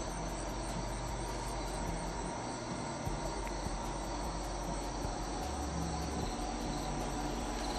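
Steady outdoor chorus of insects, with a constant high trilling and background ambience.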